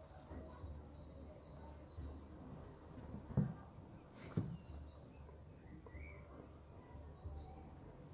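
Small bird chirping: a quick run of about seven short high calls over the first couple of seconds, then a few fainter calls later. Two dull thumps near the middle are the loudest sounds, over a faint low hum.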